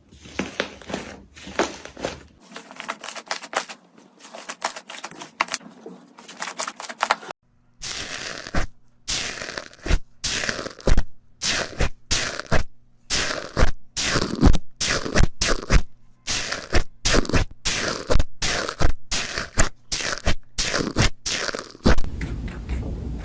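Slime being squeezed and pressed by hand, giving dense crunchy crackles and sharp pops in quick runs with brief silent gaps. The sound changes character twice, as one slime gives way to another.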